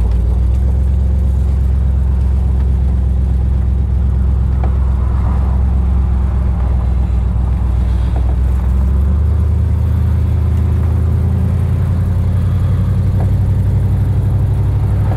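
Cabin sound of a 1955 Ford wagon's 272 Y-block V8 pulling the car down the road: a steady low engine drone with road noise, running smoothly. About halfway through, the engine note rises as the car picks up speed.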